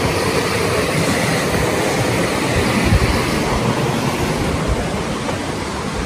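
Steady rushing noise with irregular low rumbling underneath.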